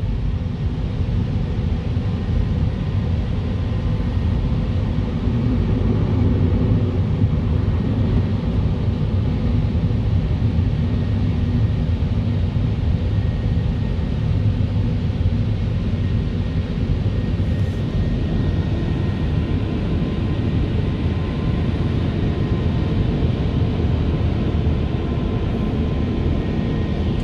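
Drive-through car wash machinery working over the car, heard from inside the closed cabin: a steady low rumble of cloth wash strips and water over the body, with a faint steady whine.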